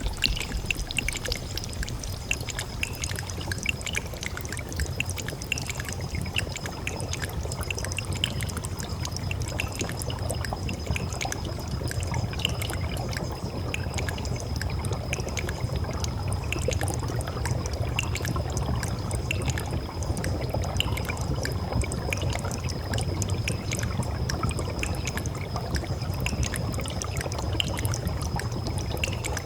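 Water trickling and pouring, with many small drip-like ticks, over a low rumble and a thin steady high tone.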